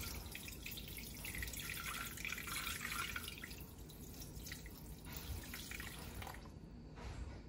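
Water being poured into the stainless steel mixing bowl of a Thermomix, a splashing pour that is strongest in the first half and thins to a slower trickle toward the end as the scale nears its 230 g target.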